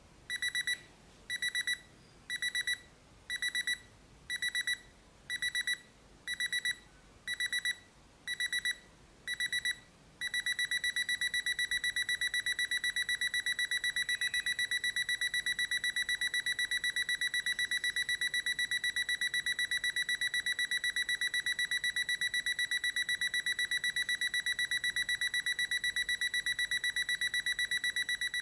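IKEA KUPONG digital alarm clock going off with a high electronic beep. It starts as short bursts of beeps a little under once a second, then about ten seconds in switches to continuous rapid beeping: a step up in its alarm, which increases in stages.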